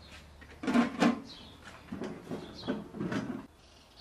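A run of knocks, clanks and scrapes from a large aluminium cooking pot being handled on its metal stand. The two loudest knocks come about a second in, then it quiets near the end.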